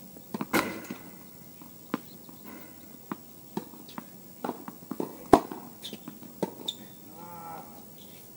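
Tennis balls struck by rackets and bouncing on the court: a string of sharp pops at uneven spacing, the loudest a little after five seconds. Near the end there is a short pitched sound, like a brief hum.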